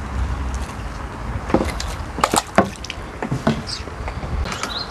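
A few sharp clicks and knocks from an angler handling a landing net and fishing tackle. A low rumble sits under the first second and a half, and short bird chirps come near the end.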